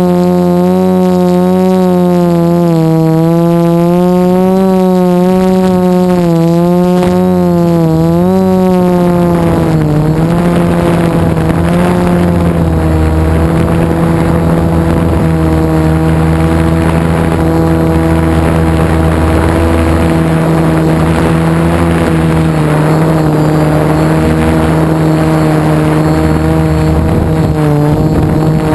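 DJI F450 quadcopter's brushless motors and Graupner 10x5 propellers buzzing in flight, heard from a GoPro mounted on its frame. The pitch wavers with throttle, dips about ten seconds in as wind noise builds with forward speed, and rises again near the end.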